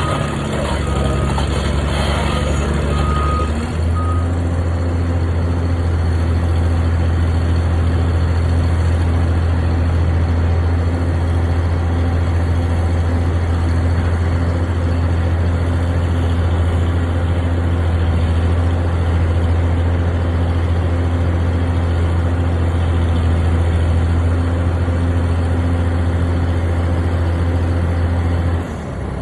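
Heavy construction machine's engine running steadily with a low hum, with a few short reversing beeps in the first seconds. Its pitch steps up about four seconds in, holds, and drops again near the end.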